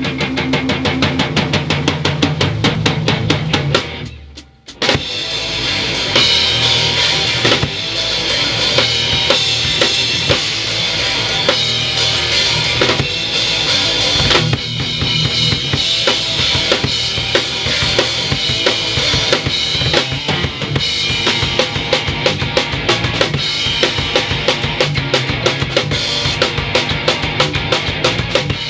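A rock band playing full-out in a rehearsal room, heard from right at the drum kit: bass drum, snare and cymbals up front over electric guitars and bass guitar. The band drops out briefly about four seconds in, then comes back in at full force.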